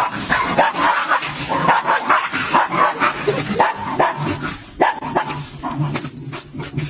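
A dog barking and yipping in quick, repeated short calls.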